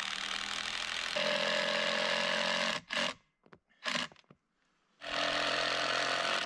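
Cordless drill running in long pulls with short trigger taps between, its pitch dropping under load about a second in, as when driving screws into wood.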